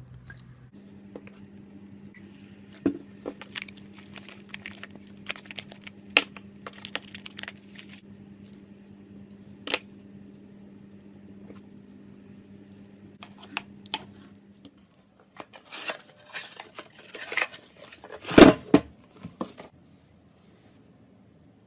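Clear slime being handled in a container: scattered sticky clicks and pops, then a louder spell of crackling and tearing about three quarters of the way through.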